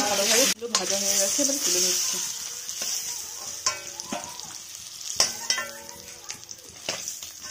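Boiled eggs sizzling in hot oil in a metal kadai as a metal spatula turns them, with a few taps and scrapes of the spatula on the pan. The sizzle is loudest in the first two seconds and then dies down.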